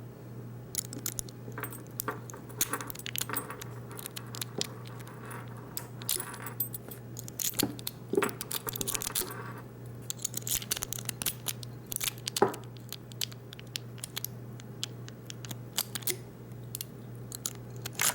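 Lock picking tools working in the keyway of a Master Lock No. 570 padlock: irregular light metallic clicks and scrapes, with one sharper click partway through, over a steady low hum.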